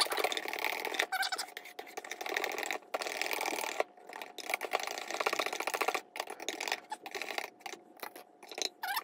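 Wire whisk beating a thick hand-molding mix in a stainless steel bowl: a rapid, continuous scraping and rattling of wire against metal. About six seconds in the steady whisking gives way to a few short, separate scrapes and knocks.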